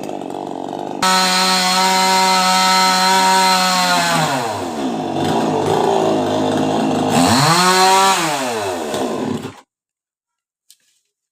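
Two-stroke chainsaw running, with the throttle opened sharply about a second in. Its engine speed drops near four seconds, revs up again around seven and a half seconds, falls away, and the sound cuts off suddenly about nine and a half seconds in.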